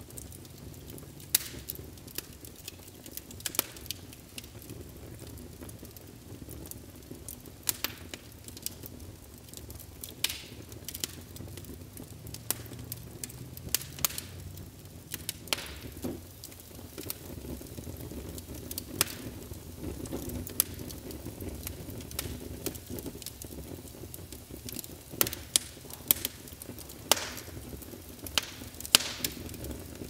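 Fire in a fireplace crackling: irregular sharp pops every second or two, several close together near the end, over a low steady rumble and hiss of the flames.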